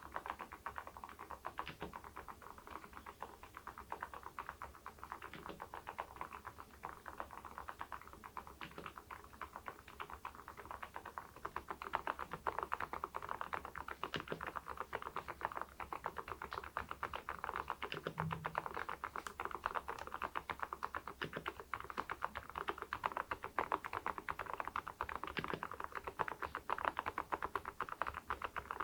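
Typing on an Epomaker TH80 V2 Pro mechanical keyboard fitted with Kailh Deep Sea switches and ceramic keycaps: a steady stream of key clacks, growing busier and a little louder about twelve seconds in.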